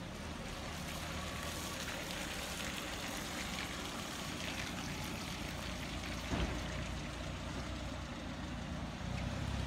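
Classic Mini's four-cylinder engine running low and steady as the car moves slowly on wet tarmac, with a hiss of rain over it. A single thump about six seconds in.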